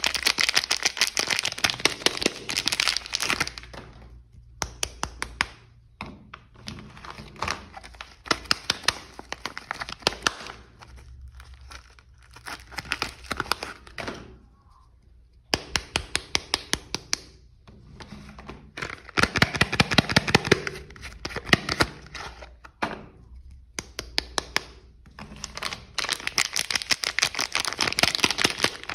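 Soap packaging being unwrapped by hand: wrapping crinkling, crackling and tearing in bursts of a few seconds, with short pauses between.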